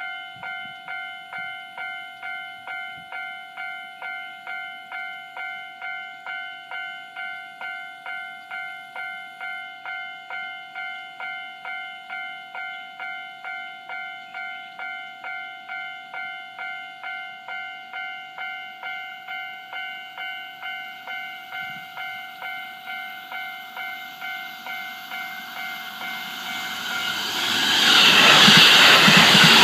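Japanese level-crossing warning bell dinging in an even, rapid rhythm. Near the end a JR E531-series electric train approaches and passes, its rushing wheel-and-rail noise swelling fast and drowning the bell.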